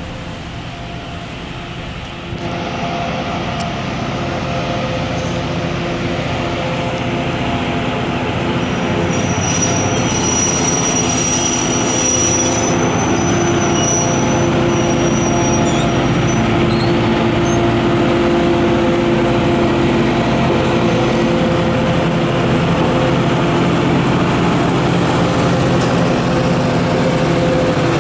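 Budd Rail Diesel Car's diesel engine running as the railcar draws near and passes close by. It gets louder from about two seconds in, and a thin high squeal joins from about nine to sixteen seconds in.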